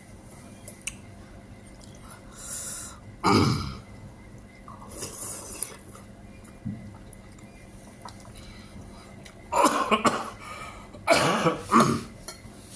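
A person coughing after choking on spicy lontong sayur: one hard cough, a fainter one, then two fits of several coughs in quick succession near the end.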